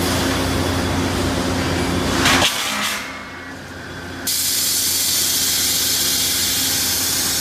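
Steady machine noise: a low hum with hiss that stops abruptly about two and a half seconds in, then after a quieter gap a steady hiss starts suddenly and runs on.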